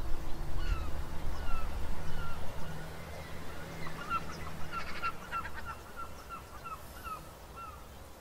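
Birds calling over and over in short, falling cries, thickest a few seconds in, over a steady low rumble that fades toward the end.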